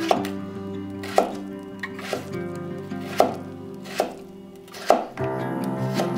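Kitchen knife chopping through peeled daikon radish onto a wooden cutting board, a crisp cut about once a second, seven in all, over soft background music.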